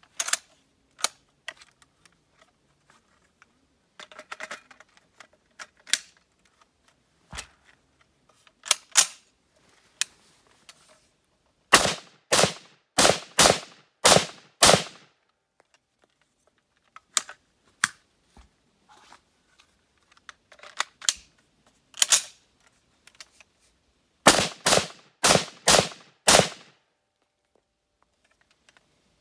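SKS semi-automatic rifle (7.62×39mm) firing two strings of about six shots each, the first at roughly two shots a second, the second a little quicker. Before the shooting, lighter metallic clicks and clacks of the rifle being handled and readied.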